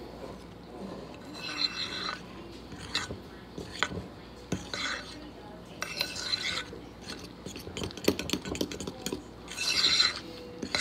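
Metal fork stirring thick pancake batter in a ceramic bowl: wet scraping strokes in several separate bursts, with sharp clinks of the fork against the bowl.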